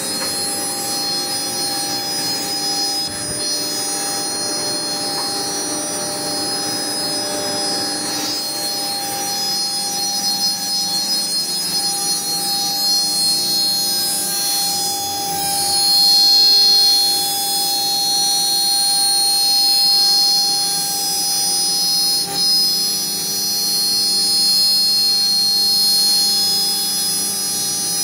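CNC wood router running, a steady whine made of several fixed high tones, growing a little louder about sixteen seconds in.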